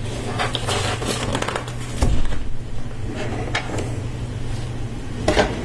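Lego Technic plastic parts being handled and pressed together: a string of light clicks, rattles and scrapes, with a louder knock about two seconds in, over a steady low hum.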